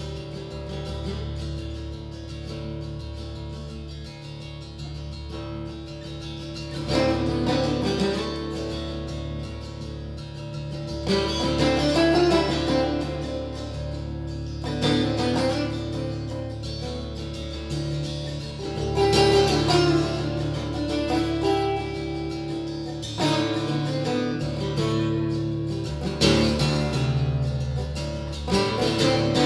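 Acoustic guitar played solo, picked and strummed, with louder chord passages swelling in several times over a steady low tone that holds underneath.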